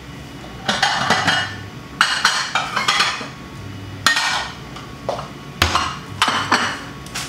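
Kitchen bowls and dishes clinking and clattering as a bowl is taken from a wall cabinet and set on the counter: a series of about seven separate sharp knocks, each with a short ring.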